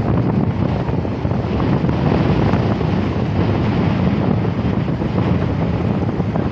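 Steady wind buffeting the microphone, with the sea's surf washing behind it.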